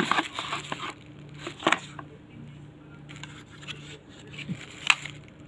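Plastic folding phone stand being handled and worked open by hand: rustling and scraping with a few sharp plastic clicks, the loudest near the end. A steady low hum runs underneath.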